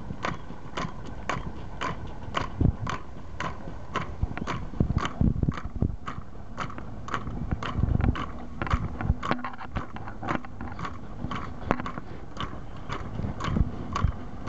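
A crowd clapping together in a steady rhythm, about two claps a second. Under it is the low rumble of cars and pickup trucks rolling slowly past.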